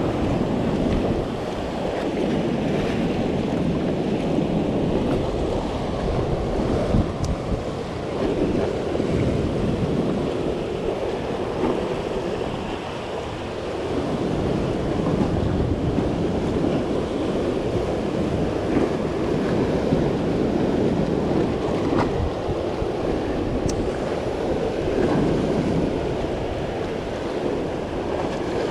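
Ocean surf washing over a rocky shore and into a gully, swelling and easing as the waves come in, with wind buffeting the microphone.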